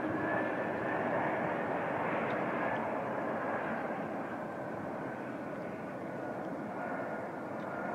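Stratolaunch carrier aircraft's six Pratt & Whitney PW4056 turbofans in flight: a steady jet engine noise with a high fan whine that slowly falls in pitch, fading as the plane moves away.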